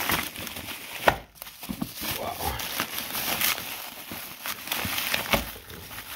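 Bubble wrap and plastic packaging crinkling and rustling as it is handled and pulled away from a boxed suspension part, with a sharp snap about a second in.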